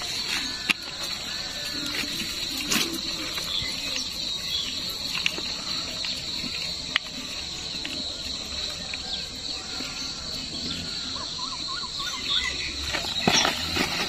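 Steady high-pitched insect chorus of crickets or cicadas, with a few sharp clicks and light rustling as a mesh shrimp trap is shaken out over a plastic bucket.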